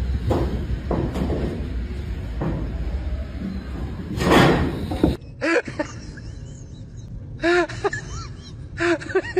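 A loud clattering crash of sheet metal about four seconds in, as a cat leaps on a corrugated metal roof, after a few lighter knocks. After that comes a different scene with three bursts of short, rising-and-falling animal squeaks.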